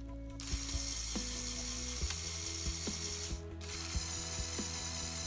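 A Lego Power Functions motor drives the plastic Technic gears of a Lego Technic 42038 Arctic Truck, which whir and click as the crane boom is raised. The whir starts about half a second in and drops out briefly past the middle.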